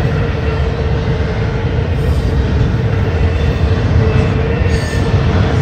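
Double-stack container well cars of a freight train rolling steadily past: a loud, even rumble of wheels on rail.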